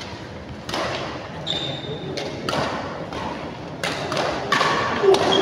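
Badminton rally: rackets striking the shuttlecock with sharp smacks about a second apart, echoing in a large hall.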